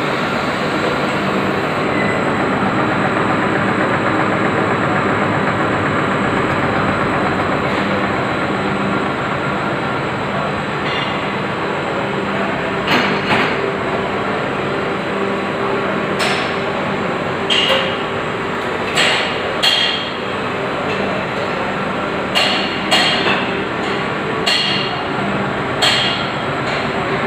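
Running workshop machinery: a steady mechanical hum and noise, joined from about halfway through by about a dozen sharp knocks at irregular intervals.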